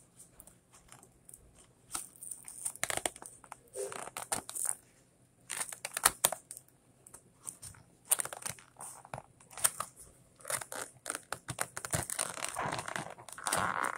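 Crinkling and crackling of a clear plastic blister pack and cardboard toy box being handled and pried at, in irregular clusters of sharp clicks, busiest near the end.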